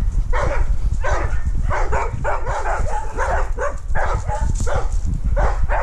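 Dogs barking and yipping over and over, about three short barks a second.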